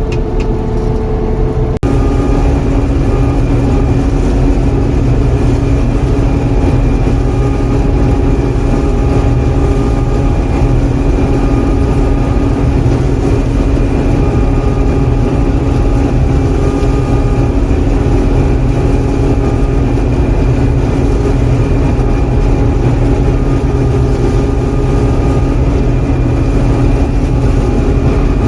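John Deere 4400 combine running steadily while harvesting soybeans, a continuous machine drone with several steady tones. It steps up suddenly in level about two seconds in, then holds steady.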